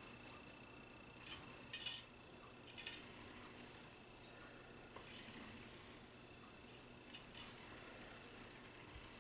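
Light metallic jingling and clinking in about five short bursts, loudest about two seconds in and again about seven seconds in, over a faint steady high whine.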